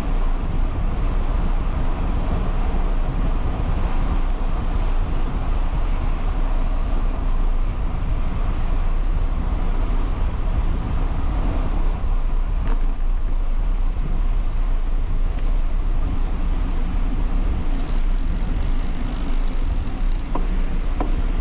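Steady wind noise and road rumble on the microphone of a handlebar-mounted GoPro HERO11 on a moving bicycle, its wind reduction switched off. A faint click comes about twelve seconds in and another near the end.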